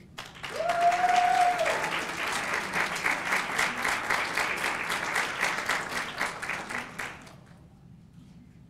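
Audience applauding for about seven seconds before the clapping dies away, with one person's long, held cheer rising over it about half a second in.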